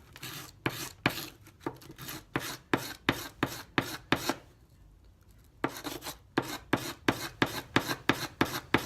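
Coarse sandpaper rubbed by hand over a small piece of purpleheart wood in quick back-and-forth strokes, about three a second, stopping for about a second midway before starting again.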